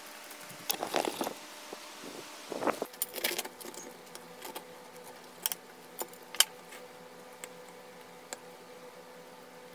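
Two short bursts of jangly rattling, then a table knife cutting a flatbread and tapping a ceramic plate in a few sharp clicks, over a faint steady hum.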